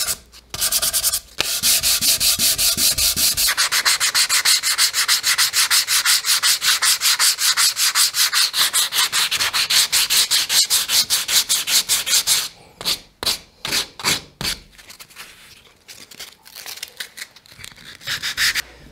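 Sandpaper rubbed by hand over a reclaimed cherry and poplar box and its lid in quick back-and-forth strokes, smoothing the wood for finishing. The strokes grow sparser in the last few seconds.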